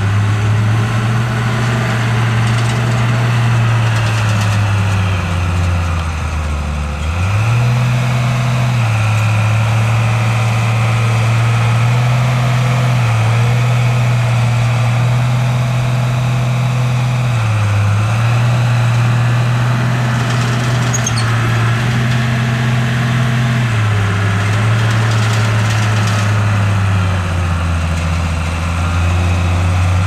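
Heavy diesel engine of an earthmoving machine running under changing load, its pitch stepping up and down every few seconds; it drops lower about six seconds in, rises again, and sags once more near the end.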